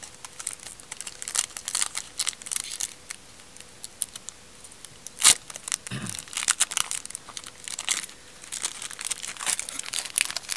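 Foil trading-card pack wrapper being crinkled and torn open by hand, a run of irregular crackles with one loud sharp crack about five seconds in.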